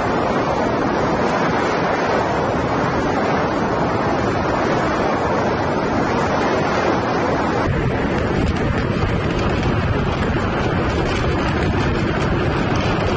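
Steady rushing wind noise on the microphone, with a heavier low rumble from about eight seconds in.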